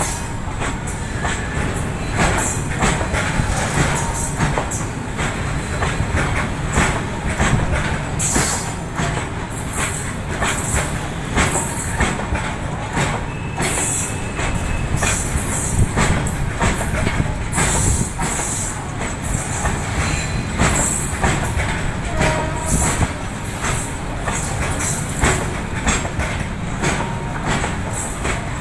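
Covered bogie goods wagons of a long Indian Railways freight train rolling past, their wheels knocking over rail joints in a steady, continuous clatter over a heavy rumble.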